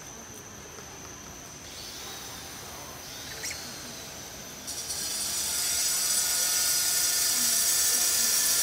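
Cicadas in the forest canopy: a loud, shrill, steady buzzing drone that starts suddenly about halfway through.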